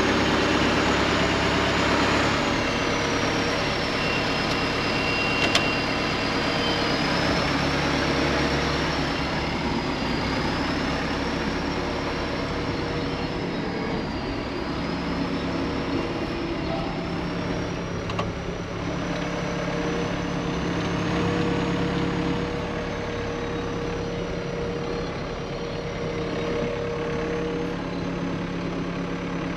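Farm vehicle's engine running steadily at an even speed, with a high whine that drifts slowly up and down in pitch and a couple of faint clicks.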